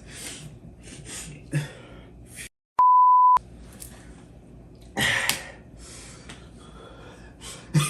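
A single censor bleep: a steady 1 kHz tone about half a second long, dropped into a brief gap of dead silence, about three seconds in. A short noisy burst follows about two seconds later.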